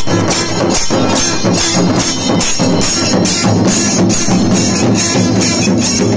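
Procession drums: large barrel drums beaten with sticks in a fast, steady rhythm, with bright metallic jingling over the beat.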